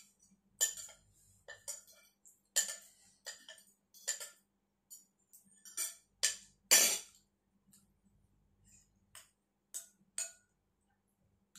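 Metal spoon and fork clinking against a ceramic bowl and plate during a meal, a dozen or so short irregular clinks, the loudest a little past the middle.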